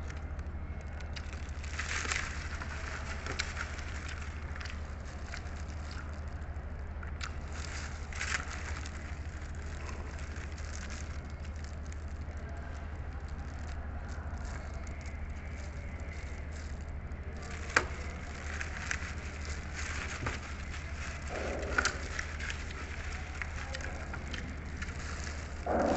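Close-up eating sounds: crackly crunching and chewing with scattered sharp clicks, over a steady low hum.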